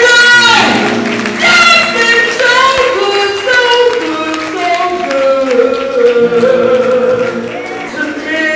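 A woman singing a slow gospel song into a microphone, holding long notes with wavering pitch and sliding between them, over her own upright piano accompaniment.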